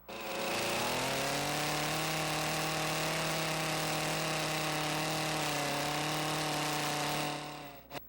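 A power tool motor starts, spins up over about a second, runs at a steady pitch for several seconds and then winds down near the end.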